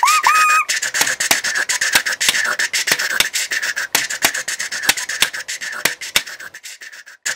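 Home-made imitation of a steam train: a busy, hissing chuff with many sharp clicks, and a short rising whistle in two parts just after the start. The sound fades down near the end and almost stops.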